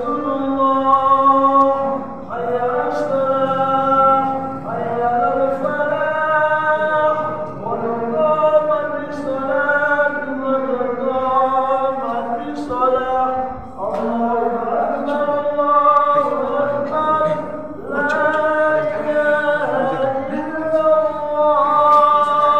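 A man's voice chanting an Islamic devotional chant into a microphone, sung in long, wavering melodic phrases with short breath pauses every few seconds.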